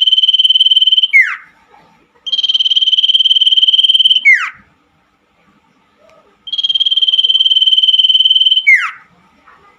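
Common iora (cipoh) song: three long, rapid, buzzy trills of about two seconds each, each ending in a quick downward slur. A faint steady tone sounds in the gaps.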